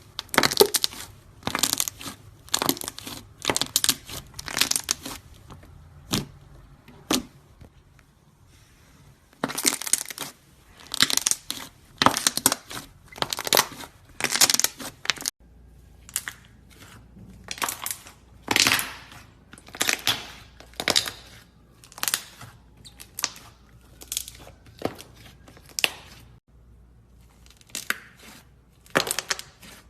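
Close-miked crisp crackling and crunching as a crunchy craft material is squeezed and pulled apart by hand, in irregular bursts about a second apart with a short quiet pause about a quarter of the way in.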